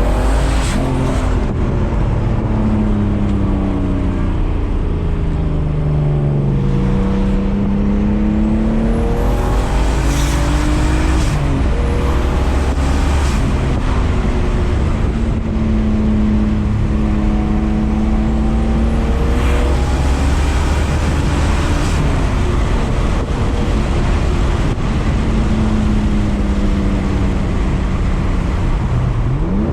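Turbocharged BMW E36 engine accelerating and lifting off repeatedly, its pitch climbing and then dropping several times. On lift-off there are short bursts of noise from the turbo fluttering.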